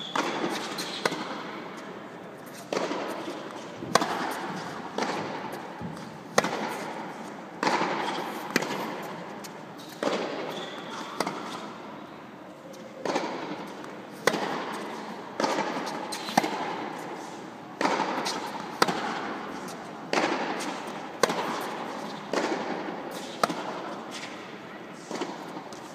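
Tennis balls struck by rackets and bouncing on a hard court in a steady baseline rally: a sharp pop about once a second. Each pop trails off in the echo of a large, empty indoor arena.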